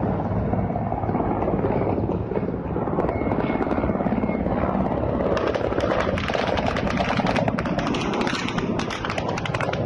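Military attack helicopters flying low and close, a steady rotor thump and engine noise, with a rapid sharp crackling chop of the rotor blades in the second half.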